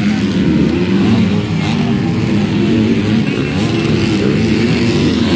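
Motocross bikes racing, their engines revving up and down continuously.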